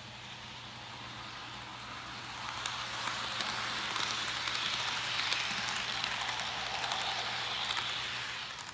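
HO-scale model freight cars rolling past on plastic-roadbed sectional track: a whirring hiss of wheels on rail that builds about two seconds in, with scattered clicks, then fades just before the end.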